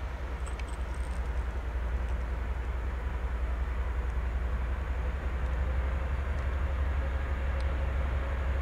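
TEP70BS diesel locomotive's engine working hard as it approaches hauling a passenger train, a steady deep rumble growing slowly louder, with the train's running noise on the rails.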